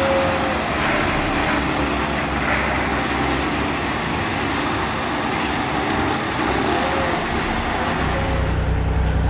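Heavy log skidder's engine running under a steady rushing noise, with a faint whine that rises and falls. About eight seconds in, the sound changes to a deeper, steadier engine rumble.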